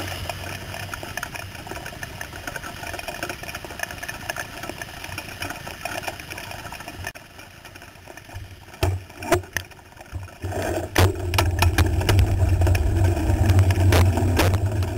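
Road traffic and wet-road hiss picked up by a camera on a bicycle riding in the rain. There are a few sharp knocks past the middle, then a louder low rumble from about two-thirds of the way through.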